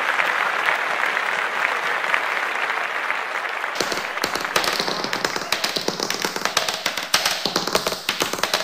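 Applause, then from about four seconds in a run of quick tap-dance taps on a wooden stage floor.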